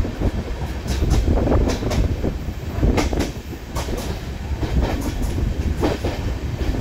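Passenger coach of an Indian Railways express running at speed, its wheels clacking over rail joints, with sharp knocks at uneven spacing, several in close pairs, over a steady low rumble.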